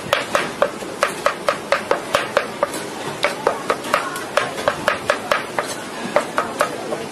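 A metal utensil striking and scraping a steel wok while stir-frying, in quick, even strikes about four a second, each with a short metallic ring.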